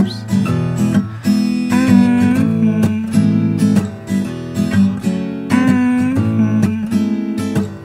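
Background music: a song led by strummed acoustic guitar.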